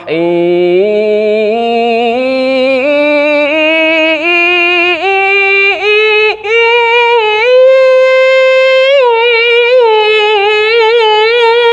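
A man's voice singing a long, unbroken line in Quran-recitation (tilawah) style. It climbs in steps from a low chest voice into a high head voice, then holds near the top with small wavering ornaments. This demonstrates the slide from chest voice into head voice.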